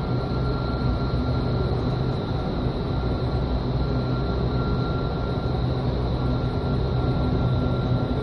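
Vertical wind tunnel running: a steady, unbroken rush of air and drone of the tunnel fans, with a constant high whine on top.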